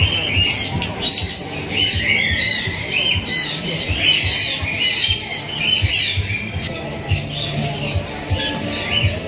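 Many small cage birds chirping and squawking at once: a dense, unbroken chatter of short high calls overlapping one another.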